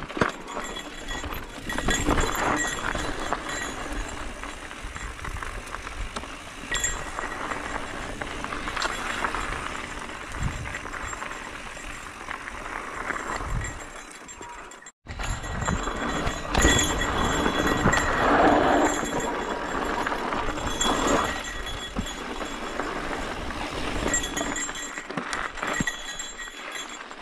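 Mountain bike ridden on a dirt and rock trail, heard close up: tyre noise with many small clicks, knocks and rattles from the bike over bumps. The sound cuts out for an instant about halfway.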